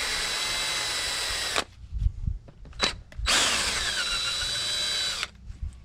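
Power drill spinning a T20 Torx bit in two runs of a second or two each, backing out the small screws of a worn automatic front locking hub, with a few short knocks in the pause between the runs.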